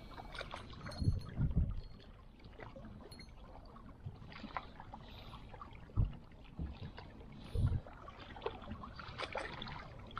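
Small sea waves lapping and splashing against shoreline rocks, a steady wash with scattered little splashes. A few low thumps, about a second in and twice more later, come from wind or handling on the microphone.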